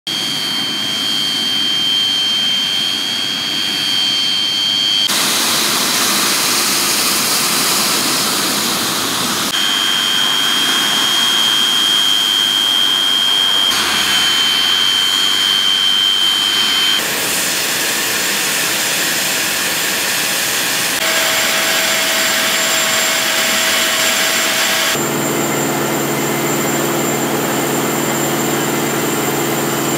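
Antonov An-148's twin D-436-148 turbofan engines running at low taxi power: a loud steady rush with a high whine over it. The sound changes abruptly several times.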